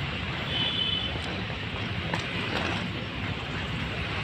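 Steady outdoor street noise: a low, continuous rumble of road traffic, with no distinct events standing out.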